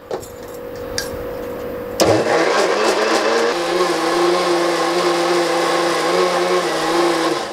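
Electric mixer grinder (mixie) switched on about two seconds in: its motor spins up with a rising pitch, then runs steadily as it grinds soaked moong dal, gram flour and water into batter in its steel jar, and stops just before the end.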